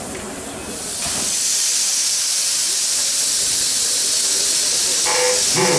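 DR class 03 express steam locomotive 03 1010 venting steam: a loud, steady hiss that sets in about a second in.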